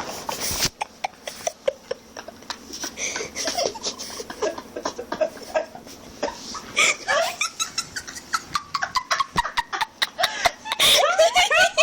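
Laughter and giggling in many short bursts, with a voice rising through it about seven seconds in and again near the end.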